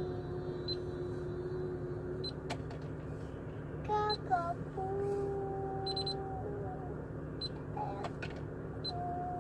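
A young girl singing, holding long steady notes of a second or two with shorter notes between them, over the low steady hum of a car interior.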